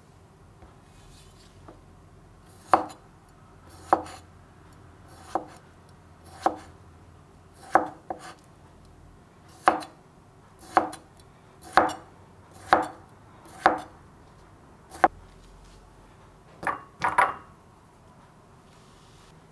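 Kitchen knife slicing pickles on a bamboo cutting board: about a dozen single crisp knife strikes on the board, roughly one a second, then a quick run of knocks near the end.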